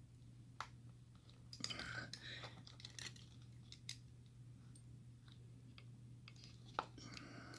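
Faint metallic clicks and small scrapes from a clip-removal tool working the retaining clip off a pin-tumbler lock cylinder, in a few scattered strokes with the sharpest click near the end, over a steady low hum.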